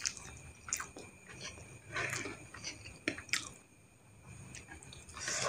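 Wet, close-up chewing of a mouthful of mie goreng instant fried noodles, with scattered small clicks and smacks, pausing briefly past the middle.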